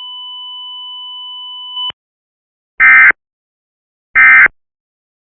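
Emergency Alert System mock: a steady electronic tone that cuts off suddenly about two seconds in, then two short, loud end-of-message data bursts of the digital EAS code, evenly spaced, marking the close of the alert.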